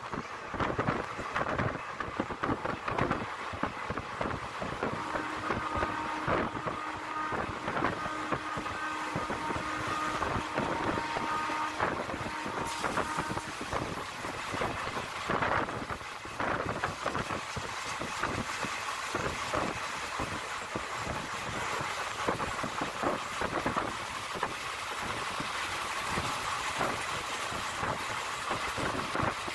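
Moving passenger express train heard from its own coach: wheels running on the rails with a steady rumble and rapid clicking over the track. A faint steady tone sounds for several seconds in the first half.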